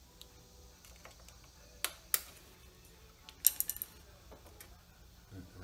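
Sharp plastic clicks and small knocks from hands working the accumulator's electrical wire connector loose under a car: two single clicks about two seconds in, then a quick run of clicks about a second later.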